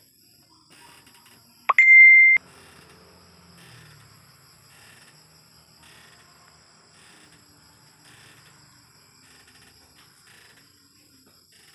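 A single electronic beep about two seconds in: one loud, steady high tone lasting about half a second that starts with a quick upward sweep and cuts off suddenly. A faint steady high-pitched whine runs in the background.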